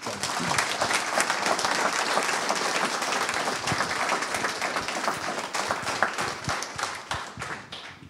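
Audience applauding: many hands clapping together, starting suddenly and dying away near the end.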